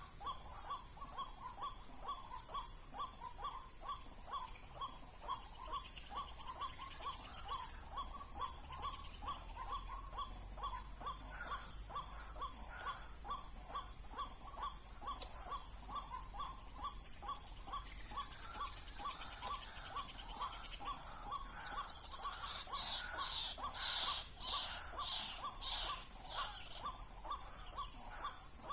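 White-breasted waterhen calling: a short note repeated about twice a second, over and over, with a louder outburst of higher, harsher calls about three-quarters of the way through.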